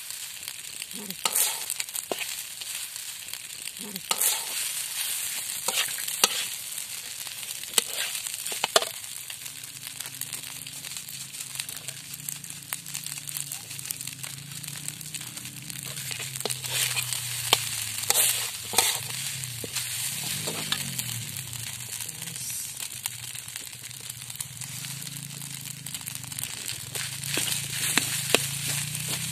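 Rice frying and sizzling in a metal wok while a metal spatula stirs it, with frequent sharp scrapes and knocks of the spatula against the pan. A low wavering drone joins about ten seconds in.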